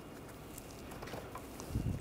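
Faint handling noise under the car: a few light clicks, then a soft low thump near the end.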